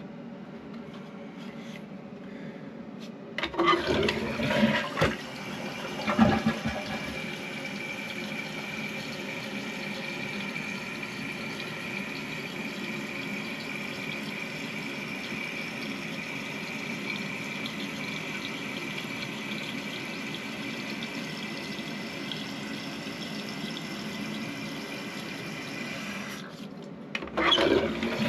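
Toilet flushing about three and a half seconds in, water rushing from the bowl. The tank then refills through a newly fitted fill valve with a steady hiss and a thin high whistle, and the valve shuts off abruptly about 26 seconds in. A second loud burst of sound comes near the end.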